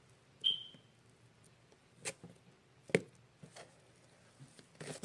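Slime putty being stretched and pressed by hand: a few scattered soft clicks and pops, with one short high squeak about half a second in.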